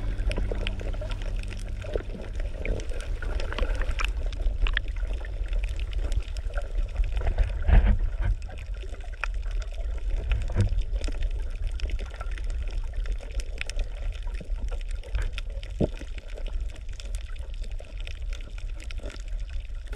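Water sloshing and trickling over a steady low rumble, with scattered clicks and knocks and one louder thump a little before the middle.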